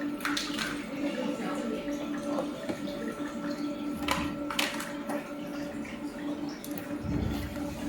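Water splashing and dripping over a steady low electric hum, with a few brief sharper splashes.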